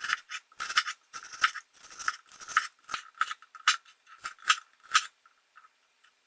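A quick series of about a dozen short, crisp scraping strokes, roughly two a second, that stops about five seconds in.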